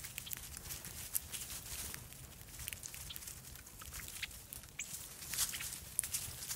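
Small birds feeding on seed in a stone bowl: many quick, irregular small ticks and clicks as they peck and shuffle among the seed, over a faint low outdoor rumble.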